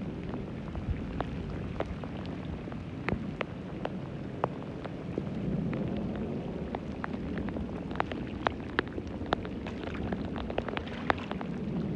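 Heavy rain pouring onto grass and a water-filled trench: a steady hiss with many sharp drop clicks, most dense in the last few seconds.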